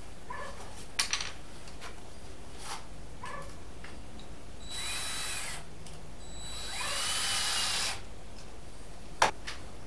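Cordless drill run twice into a plywood panel, a short burst and then a slightly longer one, its motor whine rising as it spins up and falling as it stops. Sharp knocks about a second in and near the end, the last one the loudest sound.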